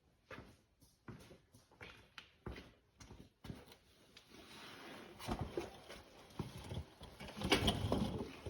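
Transmission pan bolts being scrubbed in a shop rag with brake cleaner: a run of short rubbing strokes, two or three a second, then a longer, louder rushing sound in the second half.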